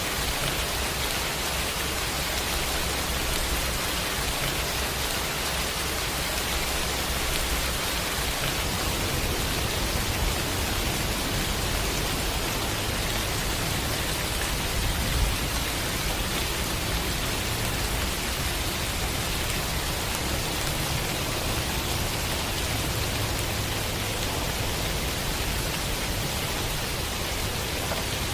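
Steady, heavy rainfall: an even hiss of rain with no pauses.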